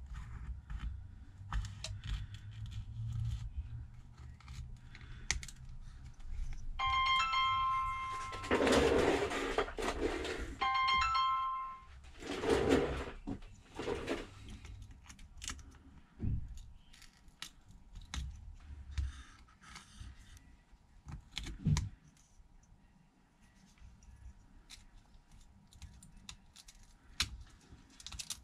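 Small clicks and scrapes of hand tools working at a phone's frame. An electronic ringing tone sounds twice, each time for about a second, about seven and eleven seconds in, between louder scraping rustles.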